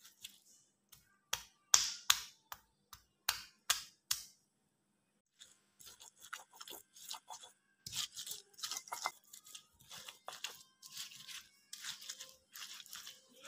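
Stone pestle on a flat stone mortar (Indonesian ulekan and cobek) crushing bird's eye chilies, shallots and garlic with salt: about nine sharp crushing knocks in the first four seconds, then after a short pause a quick run of crunchy grinding and scraping strokes, the ingredients being ground to a coarse paste.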